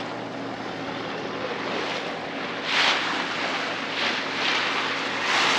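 Sea water washing against a boat at sea, with louder surges about every second from about three seconds in, over wind on the microphone and a low steady hum.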